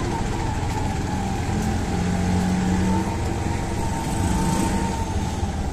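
Auto-rickshaw (tuk-tuk) engine running while riding through town, heard from inside the open passenger cabin with road and traffic noise.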